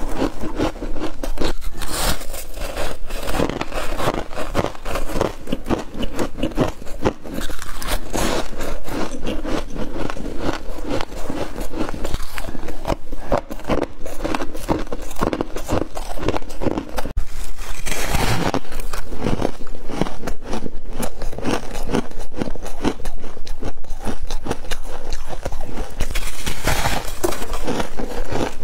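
Close-miked chewing and crunching of soft freezer frost: a dense, irregular run of crisp crackles, with frost being scraped up from the freezer by hand.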